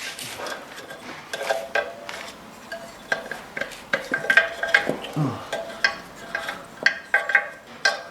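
Irregular metallic clinks and knocks, some ringing briefly, of tools and the rim lock against a dirt bike wheel rim while the rim lock and inner tube are worked into the rear tyre; the clinks come thicker in the second half.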